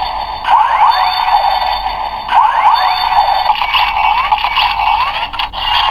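DX Guts Sparklence toy playing an electronic sound effect through its small speaker: a looping phrase with quick rising chirps that repeats about every two seconds and changes a little past halfway.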